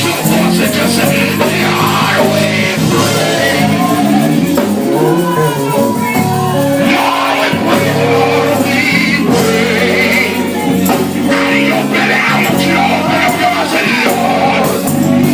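Live gospel music: a band playing with voices singing over it.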